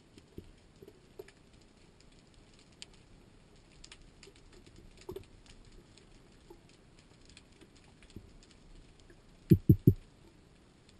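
Underwater ambience heard through a camera housing: sparse faint clicks and crackles over a low hiss. Near the end come three quick low thumps close together, the loudest sound.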